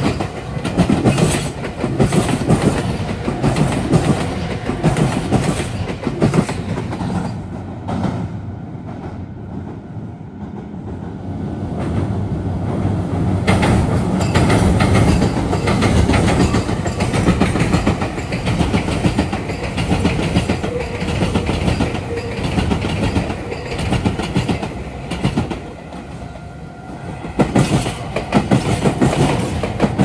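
Meitetsu electric trains passing through a junction, their wheels clattering in a quick rhythm over the rail joints and points. The clatter eases off around a third of the way in, then a steady loud rumble builds and the sharp clatter returns near the end.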